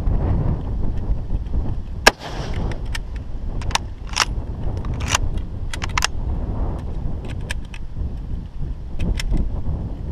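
A single loud gunshot about two seconds in, followed by a series of sharp metallic clicks and clacks from the gun being handled, with wind rumbling on the microphone throughout.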